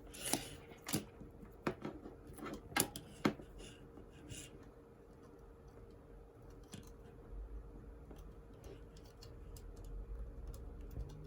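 Sharp plastic clicks and small knocks from power supply cables and connectors being handled and lined up, several in the first few seconds, then fainter handling with a low rumble in the second half.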